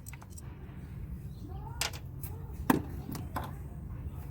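A few sharp clicks and knocks of a hand tool and socket on a bolt in the engine bay as it is being removed, the loudest a little past halfway, over a steady low background rumble.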